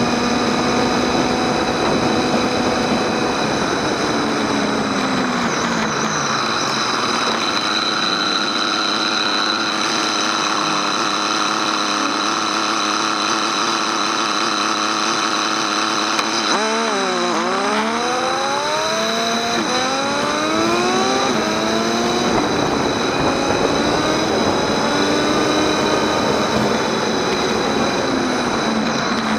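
Motorcycle engine heard from the bike itself: the revs fall as it slows, hold steady for several seconds, then climb again and again as the rider accelerates up through several gears, settling into a steady cruise near the end.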